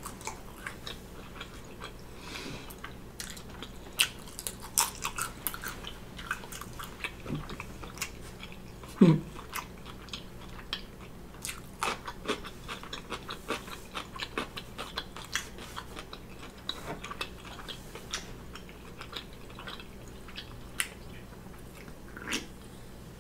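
Close-miked chewing of crunchy food, homemade potato chips and pickle slices, with many sharp crackles and crunches through the mouthful. About nine seconds in there is a short, louder sound that falls in pitch.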